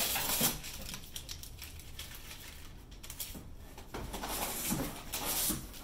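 Cardboard moving box being opened by hand: the top flaps scrape and rustle against each other, with a run of small clicks and knocks. Louder at the start and again from about four seconds in.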